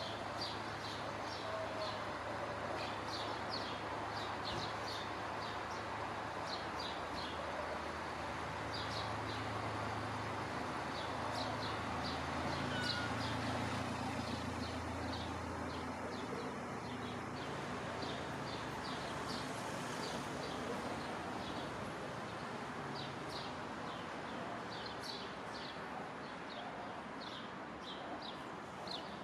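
Street ambience: a steady background rumble of traffic, with small birds chirping in short, quick notes again and again.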